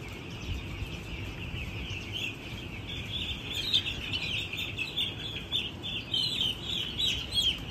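A flock of broiler chicks about a week old peeping: a dense chorus of short, high, falling peeps that grows louder and busier about halfway through.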